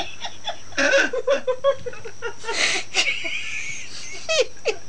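People laughing in short, rhythmic bursts of voice, loudest about a second in, with further laughs and breathy bursts after.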